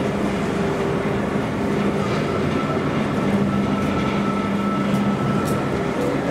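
Steady drone of a locomotive engine running, a low hum with a thin high whine that comes in about two seconds in.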